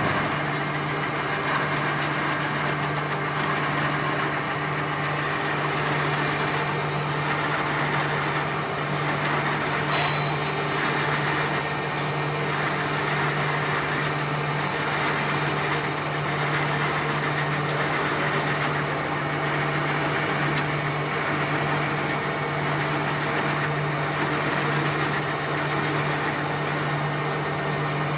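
Workshop machinery running steadily, with a constant low hum and an even whirring noise over it. A short tick comes about ten seconds in.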